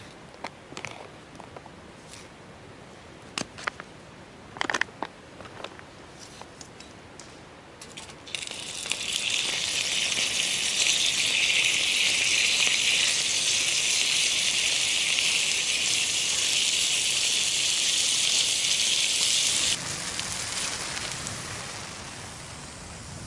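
Food sizzling loudly in a small pan held over the fire of a wood-burning twig stove. The sizzle sets in about a third of the way in and stops sharply near the end. Before it come scattered sharp crackles and clicks.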